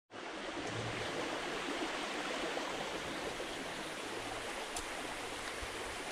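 Shallow forest stream running over rocks: a steady rush of water.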